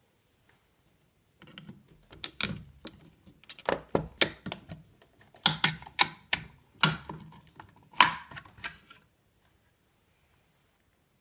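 Irregular sharp clicks and knocks of hard objects being handled, about a dozen strong ones over some seven seconds, then they stop.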